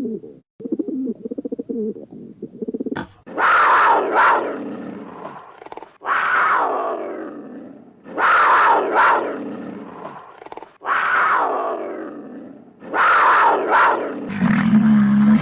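An animal calling loudly five times in a row, a harsh call roughly every two to three seconds, each starting suddenly and dying away. Before the calls there is a low, rapidly pulsing call.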